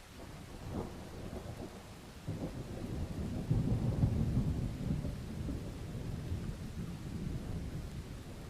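A long roll of thunder that starts suddenly, swells to its loudest about four seconds in, then slowly dies away, over steady rain.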